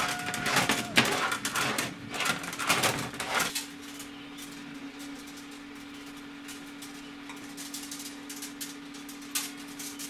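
Copper tubing scraping and clicking against an aluminium drinks can and the table as it is wound by hand into a coil, for about the first three and a half seconds. After that only a steady low hum is left.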